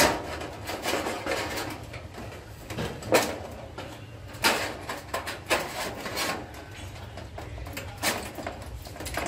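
Flat-head screwdriver prying up the cut edges of a corrugated metal roofing sheet, with irregular metallic scrapes and clicks, then a thin sheet-metal patch being pushed in under the edges and clattering into place. The sharpest knocks come about three seconds in, halfway through and near the end.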